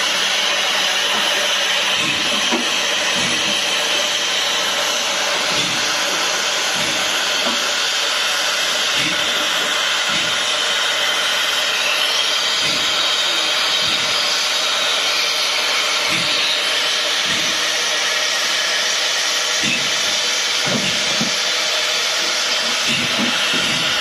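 Steam hissing steadily from a valve on top of the FS 740.409 steam locomotive's boiler.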